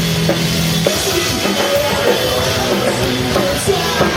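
Loud rock music with a drum kit hitting steadily over a held bass note and guitar.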